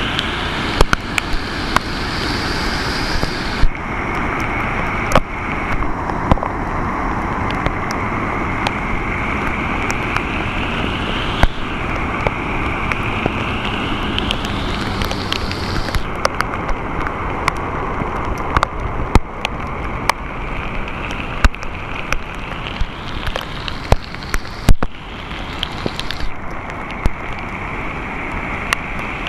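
Heavy typhoon rain and a swollen, rushing river in flood: a steady roar of water, with frequent sharp taps of raindrops landing close by.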